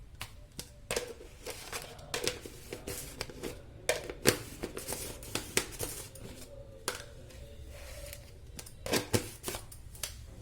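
A spoon clinking and scraping in a pressure cooker, stirring salt into soaked sprouted beans and a little water: a busy run of short clicks and scrapes, with a second cluster near the end.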